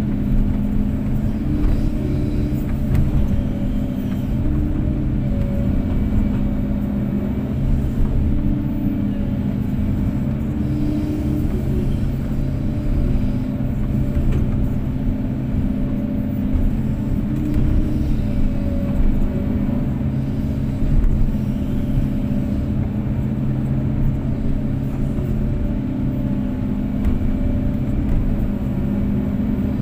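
Kobelco SK250-8 excavator's diesel engine running steadily while it works, its note rising and dipping slightly every few seconds.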